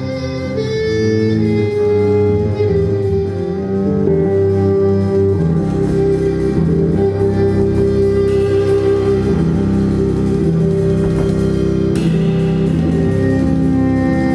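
Jazz ensemble playing, with an amplified acoustic violin among the instruments: held melodic notes over bass, the sound thickening with more low end about five seconds in.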